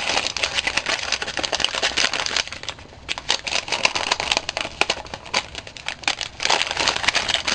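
A small gift package being opened by hand: its wrapping crinkles and crackles in quick, irregular bursts, easing briefly about three seconds in before picking up again.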